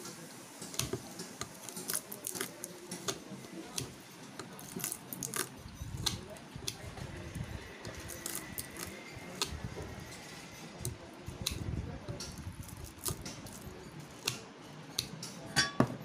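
Hand cutter snipping through the copper windings of a ceiling fan motor's stator, a run of irregular sharp snips and clicks with wire being handled. The failed coil is being cut out so the motor can be rewound.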